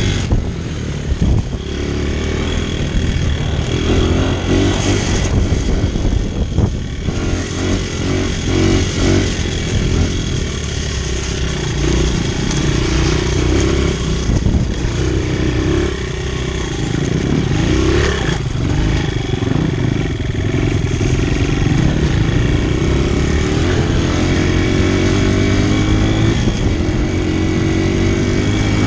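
Single-cylinder four-stroke Honda dirt bike engine heard up close from the rider, repeatedly revving up and easing off as it is ridden, with a steady climb in pitch near the end.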